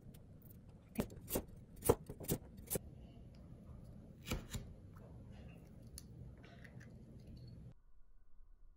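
Sharp knocks on a bamboo cutting board as vegetables are cut: five quick strikes about half a second apart, then two more a little later, before the sound drops out abruptly near the end.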